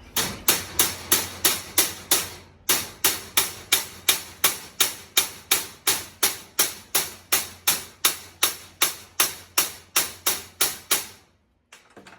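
Hammer striking a steel ramp over and over, about three ringing metal blows a second, with one short pause early on. The blows stop about a second before the end.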